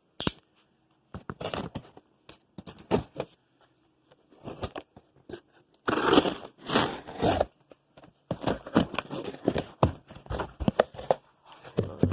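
Cardboard box and packing material being torn open and handled: irregular bursts of tearing, crinkling and scraping, with a longer run about six seconds in and a dense run of crackling near the end.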